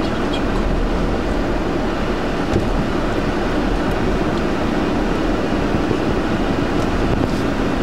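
Steady ambience of a packed, busy street: the bustle of a dense crowd on foot over a low, even rumble.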